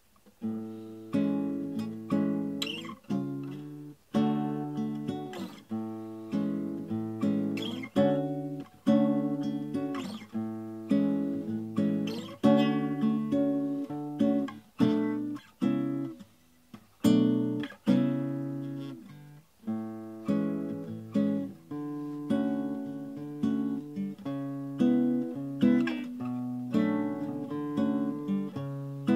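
Cutaway classical guitar played slowly, chords strummed one after another, each left to ring and fade before the next.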